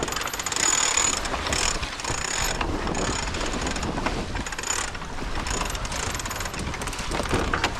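Sailboat sheet winch ratcheting in repeated runs of fast clicks as the jib sheet is winched in just after a tack, over a steady low rush of wind.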